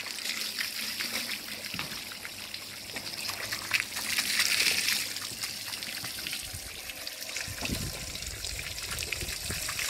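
Water from a pump-fed hose spraying into a sheep's thick wool and splashing and dribbling off it: a steady hiss that grows louder about four seconds in. This is the fleece being soaked before shampooing. A low rumble joins the hiss in the last couple of seconds.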